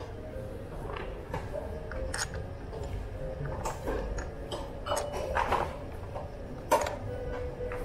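Scattered light metallic clicks and knocks of hand tools and parts being handled while a brake caliper is fitted. The sharpest click comes near the end, over a faint steady hum.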